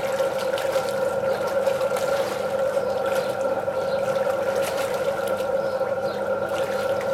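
Water splashing and sloshing as a girl and a cocker spaniel move about in a small above-ground pool. A steady hum holding several fixed pitches runs underneath it and is the loudest sound.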